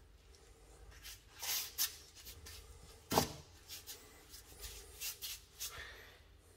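Paintbrush strokes brushing a thick decorative coating onto a plastered window reveal: a run of short brushing strokes, with a single knock about three seconds in.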